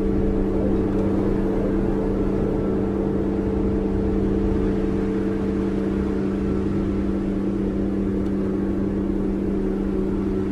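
Steady electronic drone of several low held tones, an unchanging hum that serves as the sound bed of a subliminal audio track.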